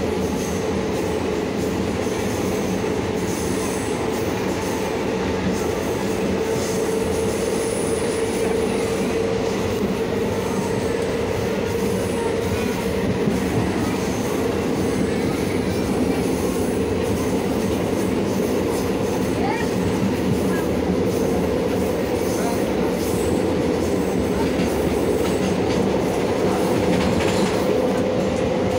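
Passenger train running at speed, its wheels rumbling on the rails with a steady hum, heard from beside an open carriage window.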